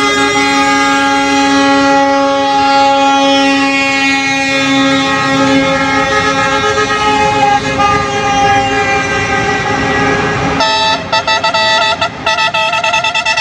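Truck horns sounding in a long held blast for about ten seconds, then breaking into a rapid series of short toots.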